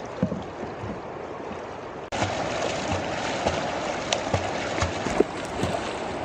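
River water sloshing and splashing around people wading through it, with a few sharper splashes. The sound steps up suddenly in loudness about two seconds in.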